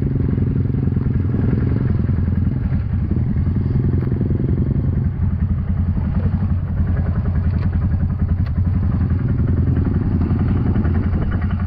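Four-wheeler (ATV) engine running steadily close by, its low note holding fairly even with small changes in revs.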